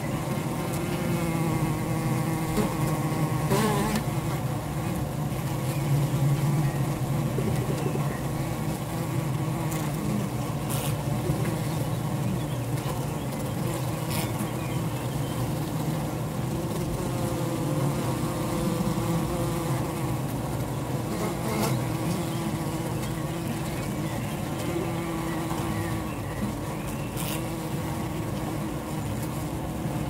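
Honey bee colony humming, heard from a microphone inside the hive among the comb: a steady low drone with a few faint scattered clicks.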